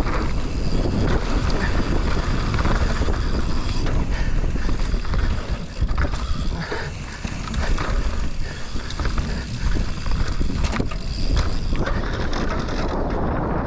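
Mountain bike riding down a wet, muddy trail, heard close up: wind rushing over the microphone, with the bike's chain and frame rattling and knocking over bumps throughout.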